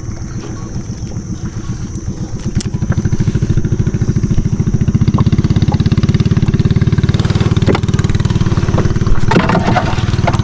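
Small boat engine running with a rapid, even pulse; it picks up and grows louder about three seconds in, then holds steady.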